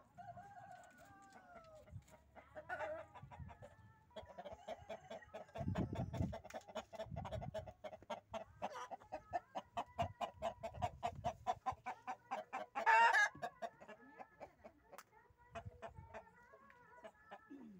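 Aseel chickens clucking in a long, rapid run of repeated notes, with a louder, harsher burst about thirteen seconds in.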